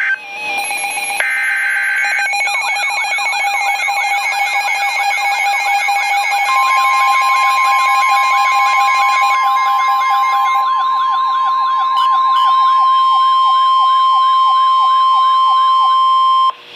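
Emergency alert tones: brief data-burst tones at the start, then several electronic siren tones sweeping rapidly up and down at once. About six seconds in, a steady single-pitch weather radio warning alarm tone joins them and holds until it cuts off sharply just before the end.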